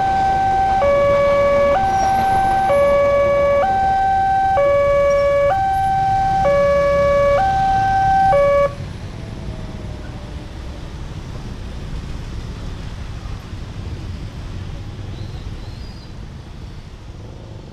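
Railway level-crossing alarm sounding an electronic two-tone signal, a high and a low tone alternating just under once a second. It cuts off abruptly about nine seconds in as the barrier lifts and the crossing reopens, leaving the noise of motorcycles and cars crossing the tracks.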